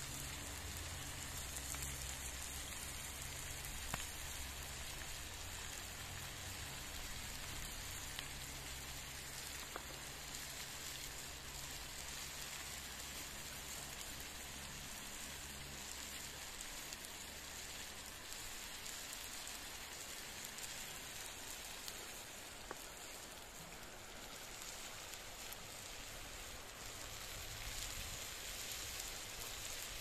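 Liver and red peppers frying in a wide black steel pan (sadj) over a wood fire: a steady sizzling hiss with a few single sharp pops.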